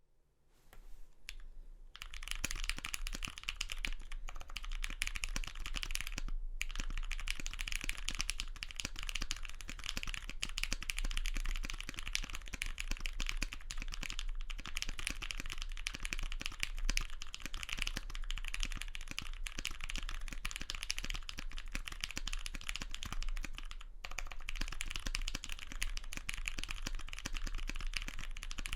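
Fast continuous typing on a custom mechanical keyboard with lubed tactile Greetech Brown switches, foam-dampened case and GMK keycaps: a dense stream of keystrokes that begins about two seconds in, with brief pauses twice. A low steady hum sits underneath.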